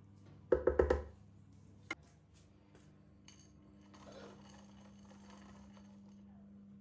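A quick run of four loud knocks, then a single sharp click about a second later, over a faint steady hum.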